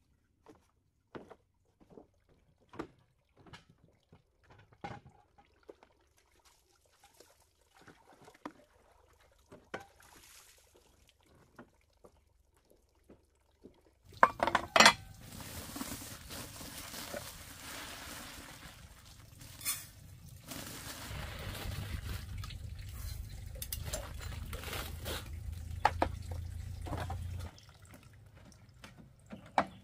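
Scattered light knocks and clicks, then from about halfway water pouring and running, with sharp clinks and clatter of pots or dishes.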